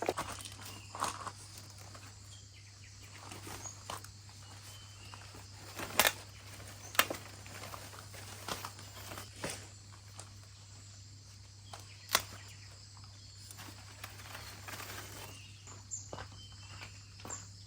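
Papaya leaf stalks being cut and snapped off while pruning: a few sharp snaps, the loudest about six, seven and twelve seconds in, with handling and rustling of the leaves between them.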